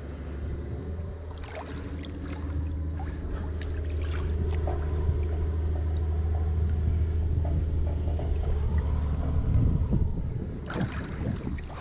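Lake water sloshing and lapping around a person standing in it at the bank, with small splashes and knocks against the wooden bank edging over a steady low hum. A louder burst of splashing and scraping comes near the end as he hauls himself out of the water.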